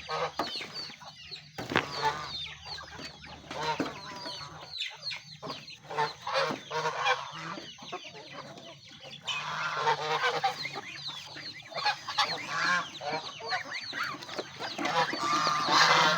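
A flock of domestic chickens clucking continuously, with geese honking at times.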